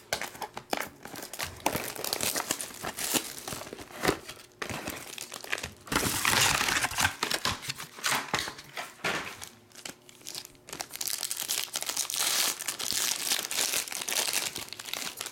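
Plastic shrink wrap and a foil trading-card pack wrapper crinkling and tearing as they are cut and ripped open by hand, in irregular rustling bursts. It is loudest about six seconds in and again near the end, where the foil pack is torn open.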